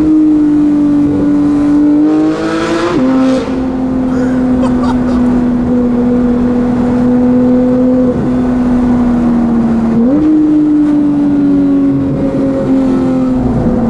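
Porsche 911 GT3 (gen 2) naturally aspirated flat-six with a full Fi exhaust, running loud and steady under way. Its pitch steps up near the start, climbs and drops back sharply about three seconds in, holds level, then steps up again about ten seconds in and sags before dropping back near the end, as with gear changes.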